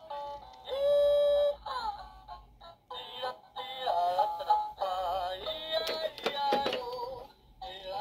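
Fisher-Price toy tractor playing its electronic song: a synthetic sung melody with music through the toy's small speaker, set off by a button press. A few clicks sound about three quarters of the way through.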